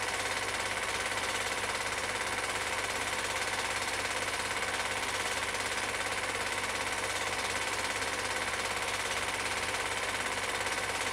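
Cine film projector running: a steady, rapid mechanical clatter from the film advance and shutter, with constant hiss.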